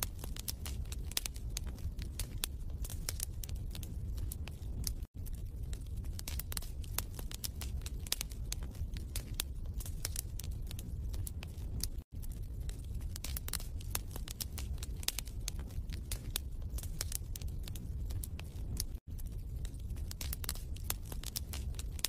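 Wood fire crackling with frequent sharp pops over a low rumble. The sound drops out briefly three times, about seven seconds apart.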